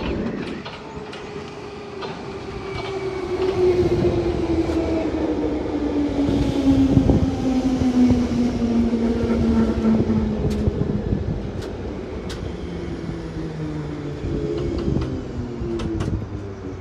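A London Underground 1972 stock Bakerloo line train pulls into the platform and slows. Its whine falls steadily in pitch over several seconds as it decelerates, under a rumble with scattered sharp clicks.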